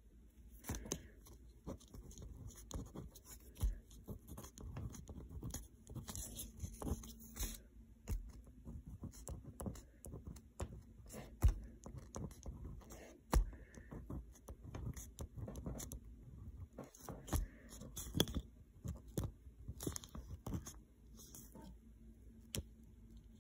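Fine-tip marker pen writing on paper: irregular scratchy strokes of the tip, with a few louder knocks.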